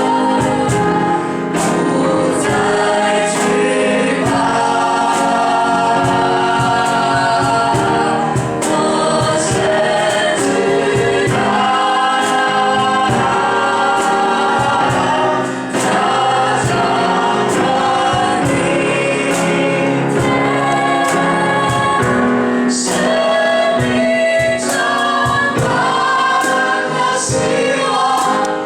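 Choir singing a Christian worship song with musical accompaniment.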